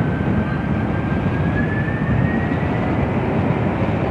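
Jet engines of a British Airways Airbus A380, Rolls-Royce Trent 900s, running on the ground: a steady low rumble, with a thin whine that climbs slowly in pitch until about three seconds in.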